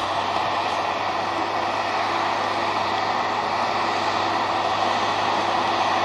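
John Deere 6910 tractor's six-cylinder diesel engine running steadily under load as it works across the field, an even, unchanging drone.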